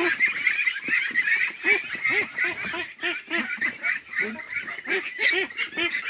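A flock of white ducks calling all at once in a pen, a dense, unbroken run of short overlapping quacks.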